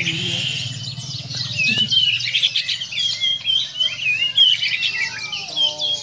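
White-rumped shama (Bornean murai batu) singing a fast, varied song of wavering whistles and chattering notes.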